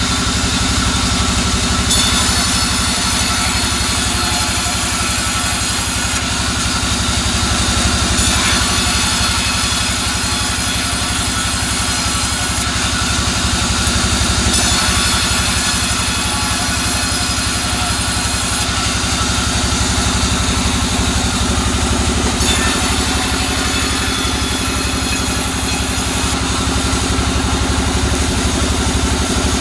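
Vertical band saw ripping soft albasia wood: a steady machine drone with a sawing hiss that rises over it in four passes of about four seconds each, separated by short gaps as the boards are fed through the blade.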